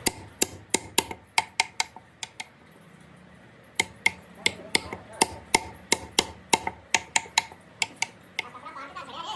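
Repeated sharp knocks like hammer blows, about three a second, each with a brief ring, stopping for about a second and a half partway through and then resuming.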